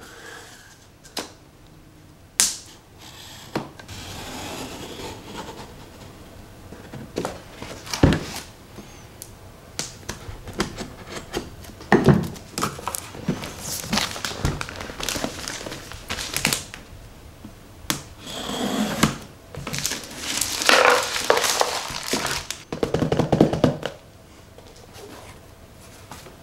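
Hands unboxing an action figure: plastic packaging and trays rustling and crinkling, with many clicks and a few knocks as parts are handled.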